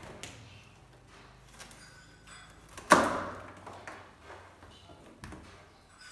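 A tensioned plastic packing strap around a cardboard box snapping loose with a single sharp crack as it is cut, about three seconds in, with lighter clicks and rustles of the strap and box being handled around it.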